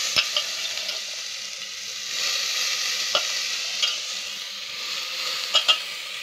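Onions and spices frying in oil in an aluminium pressure cooker, a steady sizzle that swells and eases, with several sharp clicks and knocks as handfuls of soaked black chickpeas are dropped into the pan.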